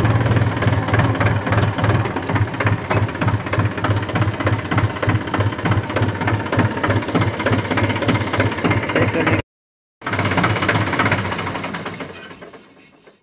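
Diesel tractor engine running steadily, broken by a short gap of silence, then dying away near the end as the engine stop knob is pulled.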